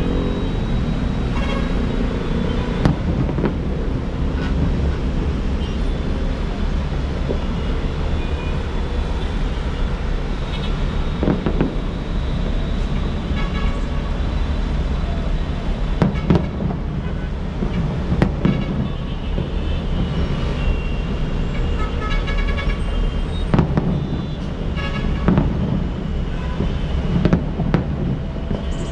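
Steady rumble of city street traffic with repeated short vehicle horn toots. Occasional sharp bangs stand out above the traffic.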